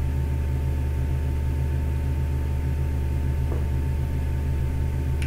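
Steady low hum with a faint steady high tone above it, unchanging throughout: the constant background noise of the recording setup, with no speech.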